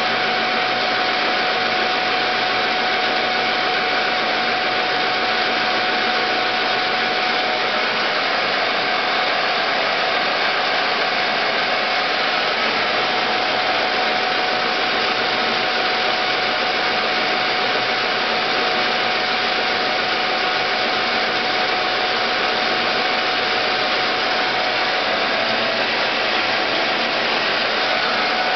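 SN320 metal lathe running steadily during a facing cut on hard aluminium: the spindle drive hums with a steady whine over an even mechanical hiss.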